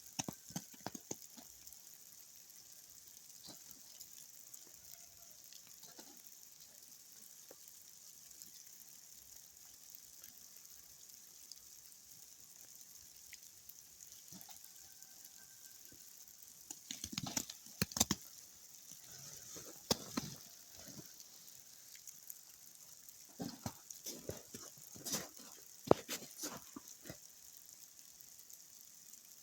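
Ice-coated tree limbs crackling and small bits of ice clattering down: scattered sharp cracks and ticks over a faint steady patter of ice, with two busier bursts of crackling after the middle and near the end.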